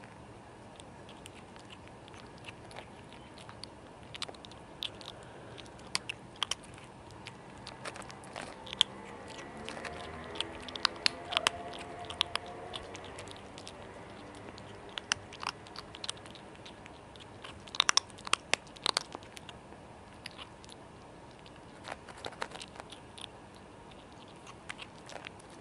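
Kitten eating dry cat kibble close up: irregular sharp crunches and clicks as it bites and chews, coming in clusters, with the heaviest burst of crunching about two-thirds of the way through.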